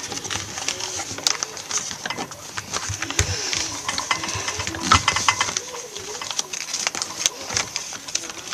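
A sheet of paper being folded and its creases pressed flat by hand: a run of irregular rustles and crackles, with faint low wavering tones in the background.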